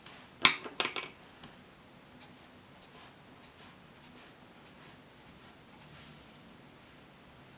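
A few sharp clacks of a pen being handled and put down on a wooden desk about half a second in, then faint scratching of a pen writing on paper.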